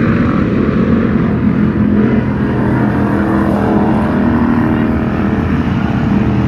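Hobby stock race car engines running hard around a dirt oval track, a loud, steady engine drone.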